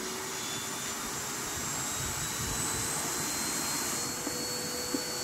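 Canister vacuum cleaner running with a steady rush of air, its motor whine rising slowly in pitch over the first four seconds and then holding, as its power setting is turned up. This pushes the inverter's load from about 2400 to about 2700 watts.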